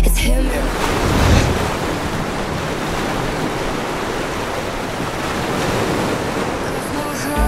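Ocean surf washing onto the beach: a steady rush of breaking waves that swells and eases slightly.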